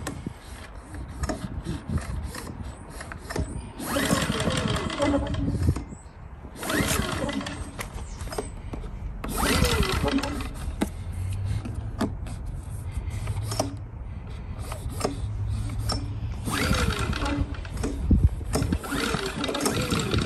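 Recoil pull-starter of a Firman W2000i inverter generator being pulled about four times, each pull a short rasp of cord and engine cranking that rises and falls in pitch.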